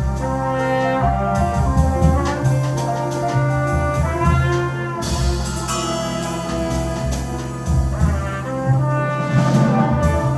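Live jazz quartet playing: a trumpet holds and moves between sustained notes over piano, double bass and a drum kit with ride cymbal.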